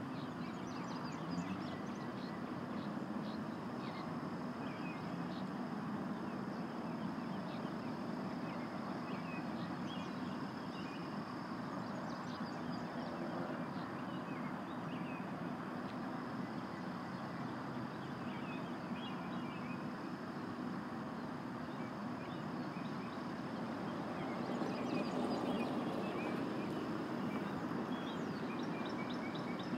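Birds chirping in short scattered calls over a steady background rush, with a thin high steady tone throughout. The rush swells a little about five seconds before the end.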